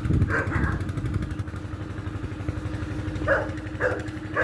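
An engine running steadily with a low throbbing rumble throughout. A dog barks a few short times near the end.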